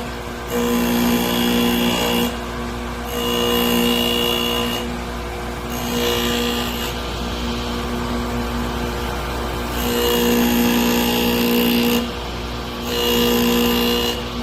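Drill bit grinder running, with a drill bit being ground against the wheel in repeated passes of a second or two, each pass louder, with a high grinding note over the motor's hum.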